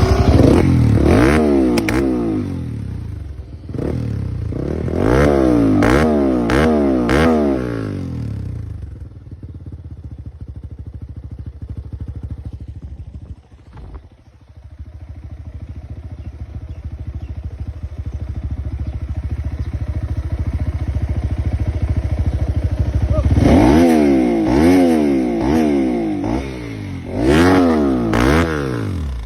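Dirt bike engine revved in repeated bursts, its pitch sweeping up and down, with sharp pops among the revs: the engine misfiring. Between the bursts it idles unevenly, nearly dying about a third of the way through, then picks up and is revved again before cutting off at the very end.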